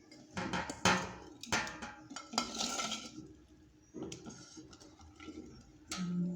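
Kitchen utensils and dishes clinking and knocking in a series of separate sharp strikes, with a brief scrape about two and a half seconds in.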